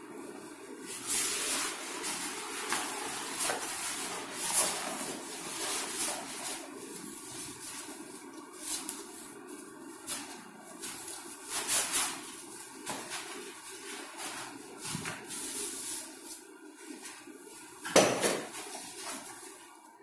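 Handling noise from an aluminium tripod and its fabric carry bag: cloth rustling and sliding, with scattered light clicks and knocks of the tripod's legs and head, and one sharp knock about eighteen seconds in.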